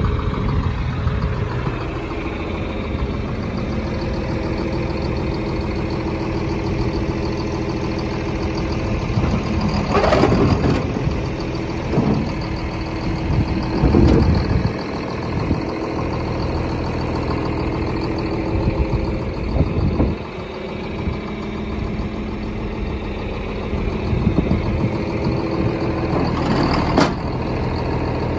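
Tractor engine running steadily, driving a Kuhn Knight 3142 reel mixer wagon whose hydraulic discharge door is being worked, with a few louder clanks and rattles from the machinery at intervals.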